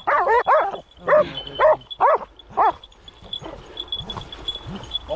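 Hunting dogs barking over the shot wild boar: a quick series of about six short, high yelping barks in the first three seconds, then quieter rustling in the grass.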